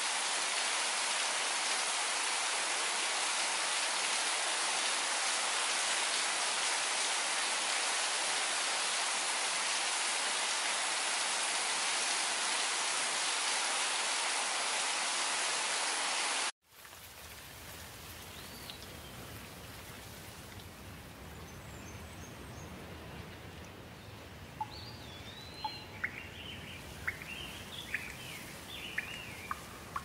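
Steady rain falling, an even hiss, that cuts off abruptly a little past halfway. A quieter rain ambience follows, with a low rumble and birds calling in short rising and falling chirps, several of them near the end.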